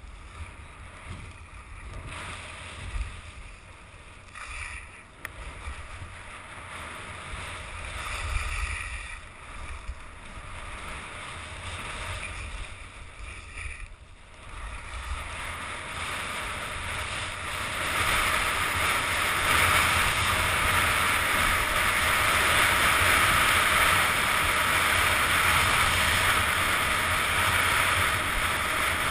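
Skis hissing and scraping over packed snow on a downhill run, with wind rumbling on the microphone. The hiss grows louder and steadier about halfway through.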